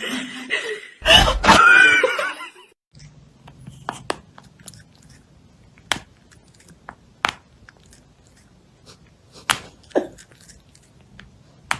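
A loud voice in the first two seconds or so, then a cat chewing: scattered sharp crunches and clicks at irregular spacing over a quiet room.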